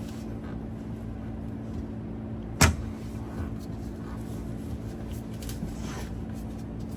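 A single sharp metallic knock about two and a half seconds in, with a few faint clicks later, as hardware and tools work against the seat's steel shock mount. Under it runs a steady low hum.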